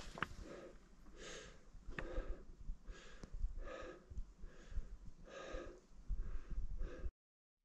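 A person breathing hard while hiking, a puff of breath about every second, with a few sharp clicks between them. The sound cuts off abruptly near the end.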